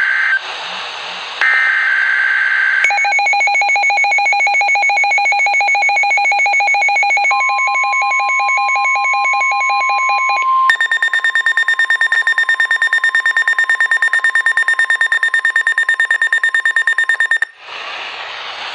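NOAA Weather Radio emergency alert signal: the end of the SAME digital header's screeching data bursts, then a weather receiver's fast-beeping built-in alarm. The steady 1050 Hz Warning Alarm Tone joins it a few seconds later. A second receiver's higher fast-beeping alarm takes over about halfway through, and it all cuts off near the end.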